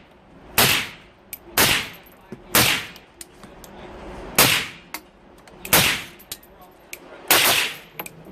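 A 7.62x39 rifle fired through a PWS Diablo suppressor, six shots at roughly one a second with a longer gap after the third. Each report is sharp with a short decaying tail and is followed a moment later by a faint metallic clink.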